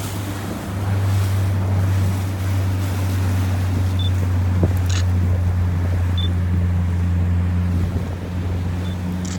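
Motorboat engine running steadily as a low, even hum, with wind and water noise around it.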